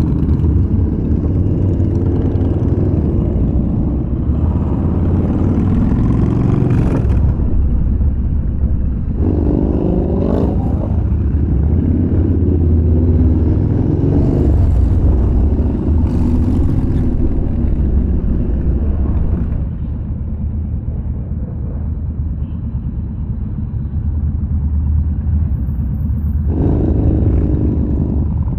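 Yamaha Bolt's air-cooled V-twin motorcycle engine running while riding, with a deep steady rumble. It revs up about ten seconds in and again near the end, and runs quieter for several seconds past the middle.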